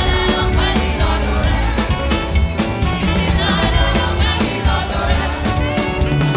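Live gospel church band music with drum kit and bass, with some singing over it.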